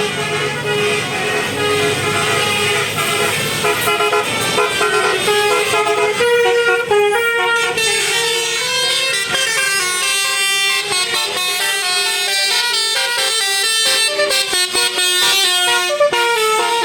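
Bus 'telolet basuri' musical air horn playing a tune: a few held notes at first, then, from about four seconds in, a fast run of short notes changing pitch.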